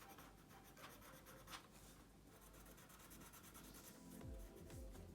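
Faint scraping of a plastic modelling knife drawn across plasticine in light strokes. Music with a low pulsing beat comes in near the end.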